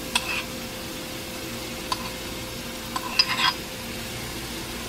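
Chopped garlic, ginger and onion sizzling gently in hot oil in a stainless steel pot, a steady quiet frying hiss. A few light clicks of a metal spoon against the bowl and pot come through it, the last ones a short cluster near the middle.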